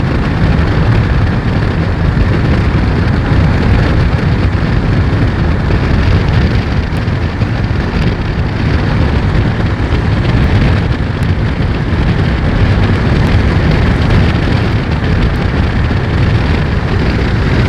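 Steady rain with wind buffeting the microphone, a loud, even rushing noise with a heavy low rumble and a few faint ticks of drops.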